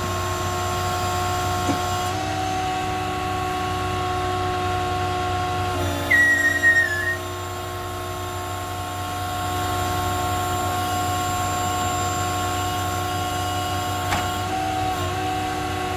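Hydraulic pump on a crane-body service truck whining steadily as the rear outrigger is swung in and stowed, its pitch shifting a few times as the control levers are worked. A brief high squeal about six seconds in is the loudest sound.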